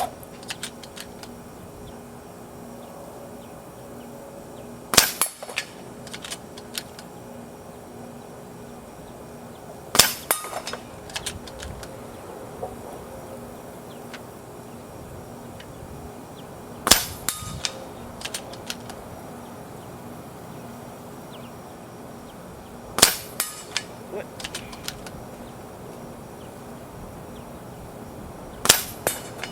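A bolt-action air rifle firing a timed string: five sharp cracks, spaced about five to six seconds apart, each followed by a few lighter clicks.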